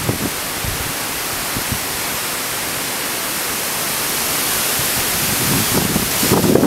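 Steady rushing hiss of wind through the trees, growing a little louder, with low gusts of wind buffeting the microphone near the end.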